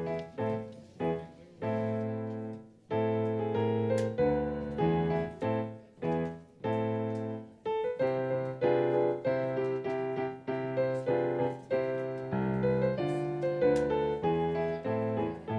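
Piano playing a slow piece in full chords, each chord struck and dying away, with brief breaks between phrases.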